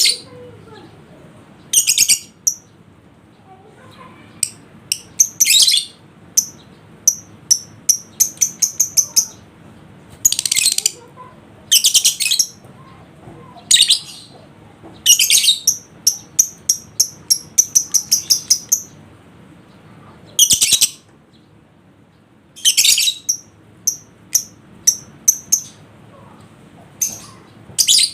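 Lovebird calling in shrill, high-pitched bursts: harsh screeches up to about a second long alternating with quick runs of short chirps, several a second, with short pauses between.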